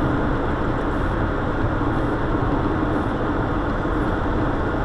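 Steady road and engine noise inside a moving car's cabin, an even, unbroken rumble.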